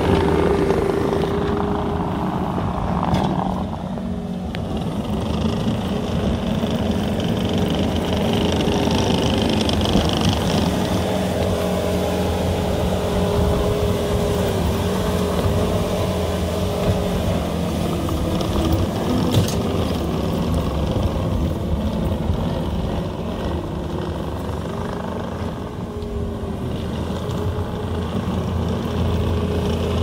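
Case TV450 compact track loader's diesel engine running steadily as the machine pushes and grades dirt, with a steady tone through it. A single sharp knock sounds about two thirds of the way through.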